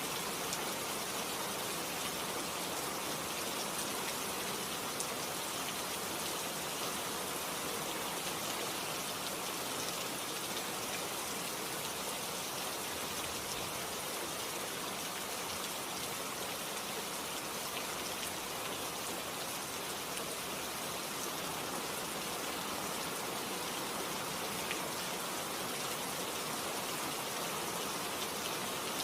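Steady rain falling, an even hiss with scattered drops ticking on surfaces.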